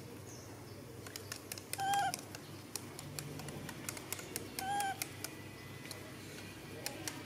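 Baby macaque giving two short, high, slightly wavering squeaks, about two seconds in and again near five seconds, calls begging for its milk. Scattered light clicks sound between the calls.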